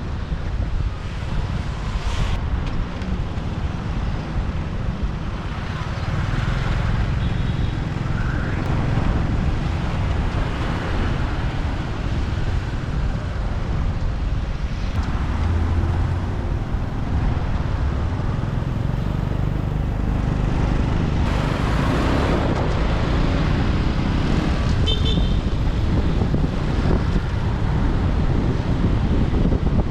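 Motorbike ride through city traffic: engines and tyre noise under a constant low rumble of wind buffeting the microphone. A few short high beeps sound about 25 seconds in.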